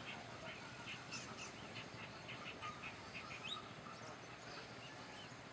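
Birds chirping: a run of short, high calls, several a second, with a quick rising note near the middle.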